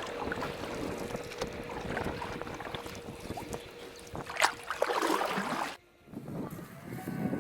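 Brushless-motored RC offshore powerboat running on the water: a thin, steady motor whine under wind noise on the microphone, with a louder rush of noise about four and a half seconds in. The sound cuts out briefly near six seconds.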